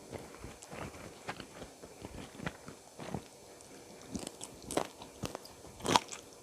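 Close-up eating sounds from a mukbang meal of spicy chicken feet with raw vegetables: irregular bites and chewing, with a few louder, sharper crunches about five and six seconds in.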